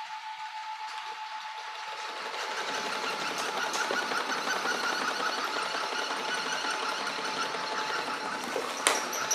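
Traxxas X-Maxx's brushless motor and drivetrain whirring and buzzing, building up about two seconds in after a steady high whine, with a sharp click near the end. The truck is running erratically on its own, which the owner cannot explain and suspects may come from a low transmitter battery or the ESC's low-voltage cutoff being set for 8S.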